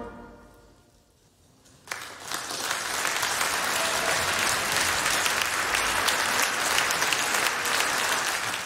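The band's last chord dying away in the hall, then a hush, and about two seconds in an audience breaks into steady applause.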